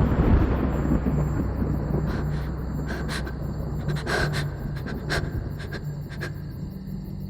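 A deep, thunder-like rumble that swells just before and slowly fades away, over a low steady drone. A few short soft hits or breath-like sounds come in the middle.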